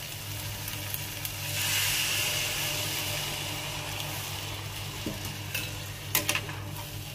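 Buttermilk poured into a kadhai of hot masala that has released its oil, hissing and sizzling as it hits. The sizzle swells about a second and a half in and fades over the next few seconds, with a couple of sharp clinks near the end.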